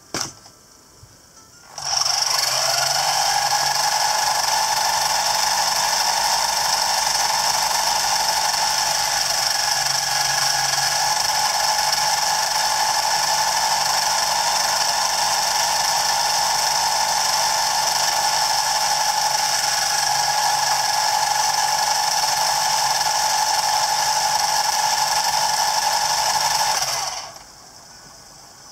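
Kyosho EP-30 electric model helicopter running on the bench, its drive whining steadily while the tail rotor spins. The whine winds up about two seconds in and stops shortly before the end.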